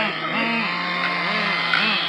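Small nitro glow engines of RC cars running, one held at a steady drone while the throttle is blipped again and again, the engine note rising and falling in short revs.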